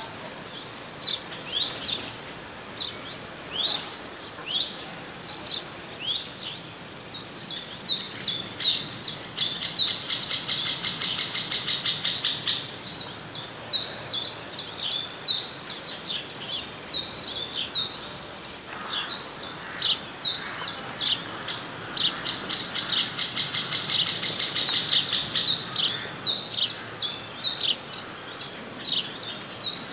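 Small songbirds chirping: many short, high calls, with two longer spells of rapid repeated notes, one in the middle and one later on, over a faint even background noise.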